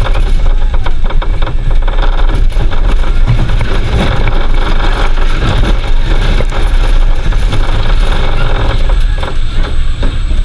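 Zierer Force Zero family roller coaster train rumbling and clattering along its steel track. The noise eases a little near the end as the train slows into the station.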